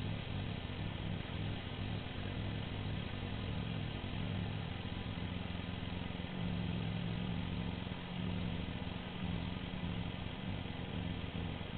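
Two-wheel walking tractor (motocultor) engine running steadily, a little louder from about six seconds in.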